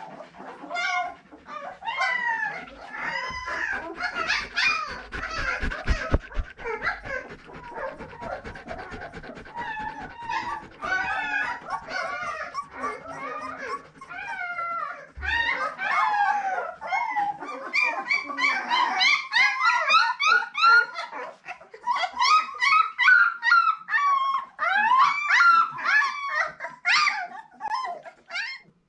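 Young puppies whining and squealing: many short, high cries that rise and fall in quick succession.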